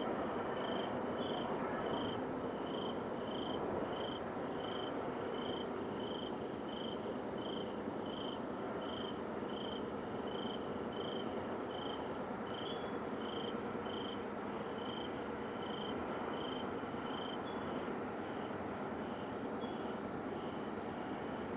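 A steady, unbroken roaring drone of unknown origin, heard coming from the sky, with no pattern to it. Over it, a cricket chirps evenly, about three chirps every two seconds.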